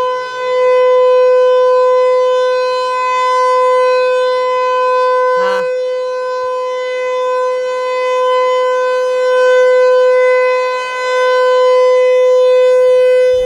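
Outdoor tornado warning siren at close range, sounding one steady held tone at extremely loud volume that swells and fades slowly. It is sounding for a scheduled monthly test, not a warning.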